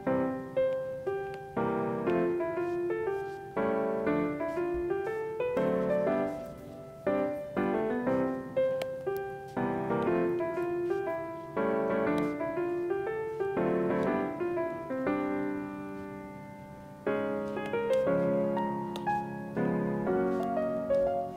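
Background piano music: a gentle melody over chords, each note struck and then fading.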